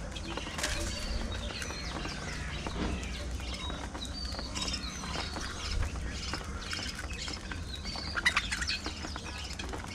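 A colony of budgerigars chirping and chattering, many short overlapping calls, with a louder flurry about eight seconds in.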